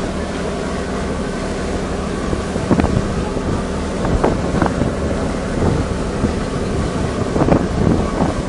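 Ferry engine droning steadily, heard from the open deck, with wind buffeting the microphone in a few short louder gusts.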